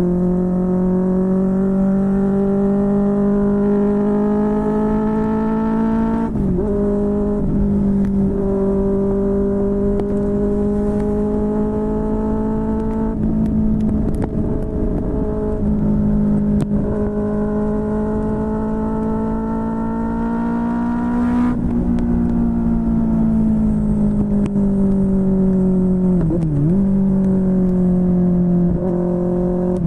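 QJMotor SRK600 inline-four motorcycle engine through a Yoshimura R11 exhaust while riding. The engine note climbs slowly in pitch, broken by several quick gear changes.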